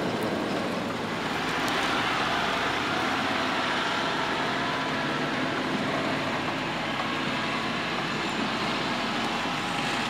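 John Deere 6R 250 tractor working under load, pulling a multi-furrow reversible plough through stubble, its engine note steady and even throughout.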